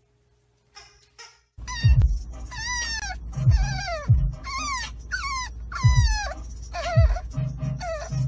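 French bulldog puppy whining over and over, starting about a second and a half in: high cries that fall in pitch, about one a second.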